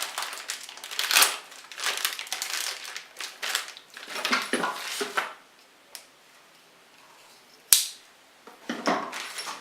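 Plastic bag of sprayer accessories being opened and rummaged: irregular crinkling of plastic with small parts clicking and clattering, a lull, then one sharp click and more handling near the end.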